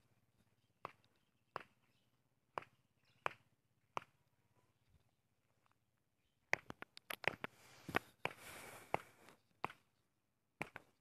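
Light footsteps and rustling on dry grass and dirt: a few separate soft steps at first, then a denser run of steps and rustling from about six and a half seconds in.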